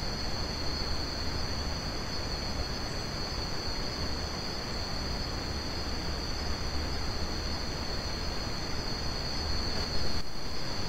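Steady high-pitched chorus of night insects, two unbroken shrill tones, over a constant background hiss and low rumble; the level shifts slightly about ten seconds in.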